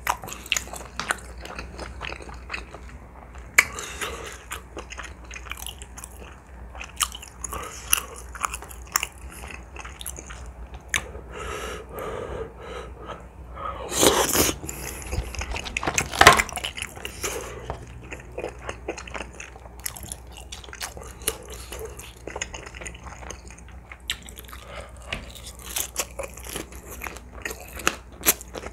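Close-miked eating sounds of a person chewing spicy tteokbokki and crispy fried chicken: steady wet chewing with crunches and smacks. A louder burst about 14 seconds in comes as a new bite goes into the mouth.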